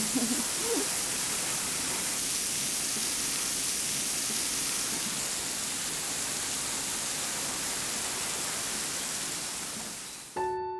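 Steady hiss of falling water. It fades out near the end as soft piano music begins.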